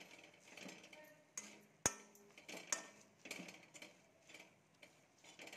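Steel spatula scraping and clinking against a pan as fried garlic, green chillies and masala are stirred, in repeated short strokes, with one sharp clack a little under two seconds in.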